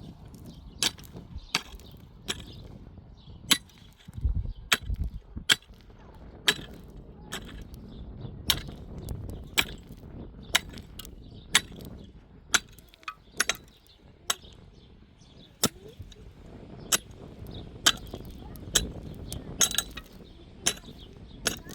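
A series of sharp knocks from building work, irregularly spaced at roughly one a second, with a low rumble about four to five seconds in.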